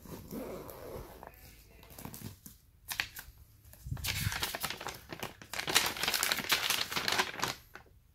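Soft rustling as a fabric case is handled, then about four seconds in a folded paper instruction leaflet crinkles loudly for about three and a half seconds as it is unfolded.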